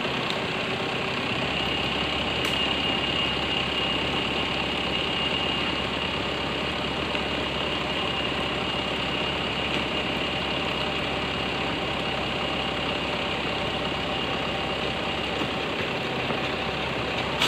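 Logging truck's engine running steadily under load as the truck winches itself up a muddy slope on a taut cable. A thin, steady high whine sits over the engine for most of the time and fades near the end.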